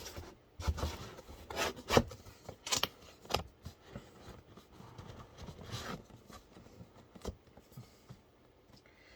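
Cardboard box and packaging being handled and set aside: scattered rubs, scrapes and light knocks that thin out after about six seconds.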